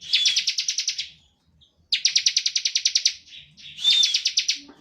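Bar-winged prinia (ciblek) singing its rapid trilling 'ngebren' song: three bursts of fast, even, buzzy pulses, each about a second long, a couple of them opening with a short whistled note.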